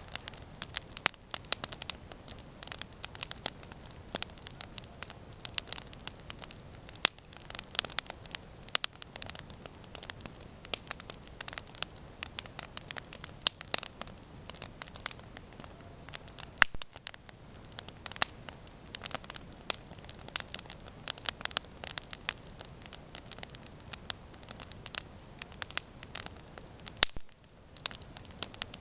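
Wood campfire crackling, with sharp snaps and pops coming irregularly, several a second.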